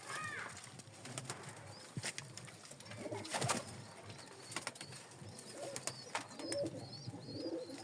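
Domestic pigeons cooing, with scattered sharp clicks and faint high chirps toward the end.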